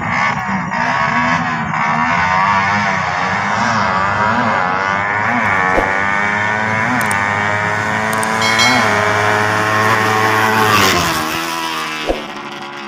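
Motorcycle engines at a drag strip, revved again and again in short blips about once a second, typical of bikes being readied at the start line. Near the end the engine note sweeps up sharply, then drops away.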